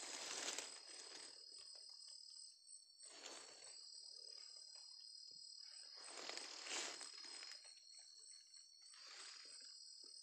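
Night insects trilling steadily at two high pitches, with a few brief bursts of rustling and handling noise.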